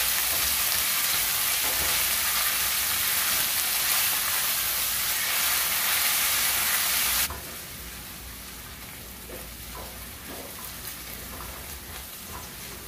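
Chopped onions sizzling as they fry in hot palm oil in a stainless steel pan, stirred with a silicone spatula. The loud, even sizzle drops suddenly to a much quieter sizzle about seven seconds in, with a few light ticks and scrapes after that.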